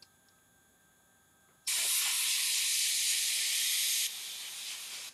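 Airbrush blowing a steady hiss of compressed air. It starts abruptly, runs strongly for a little over two seconds, then eases to a softer hiss for about a second before cutting off.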